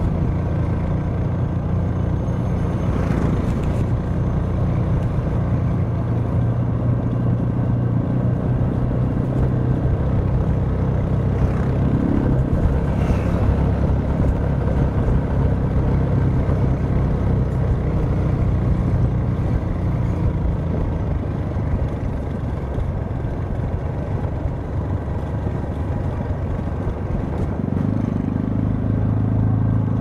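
Onboard sound of a Crossfire Korak 125cc motorcycle's single-cylinder engine running as the bike rides slowly through a street. The engine note rises briefly about twelve seconds in and climbs again near the end as the revs pick up.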